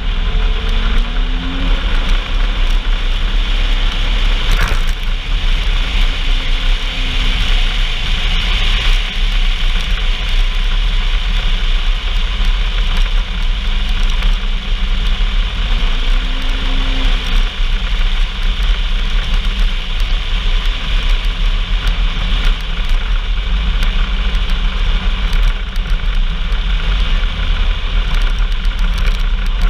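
On-board sound of a vehicle under way: the engine runs with a deep, steady rumble under a constant rushing noise. The engine note rises and falls briefly about a second in and again around sixteen seconds.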